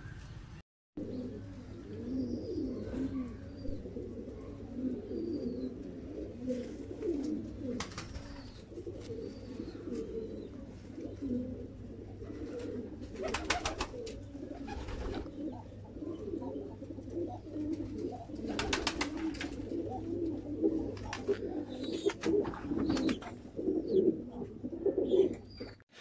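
Domestic pigeons cooing without pause, several birds overlapping, with a few sharp clicks now and then. The sound drops out for a moment just after the start.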